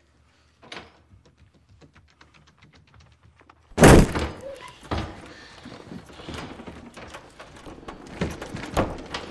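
A run of faint, quick ticks, then about four seconds in a loud bang against a boarded-up door, followed by more thumps and knocking. Something unseen is trying to break in through the door.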